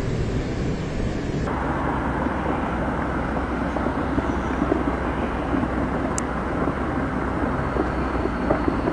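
Floodwater rushing in a steady, dense noise, with a change in sound about one and a half seconds in where one recording gives way to another.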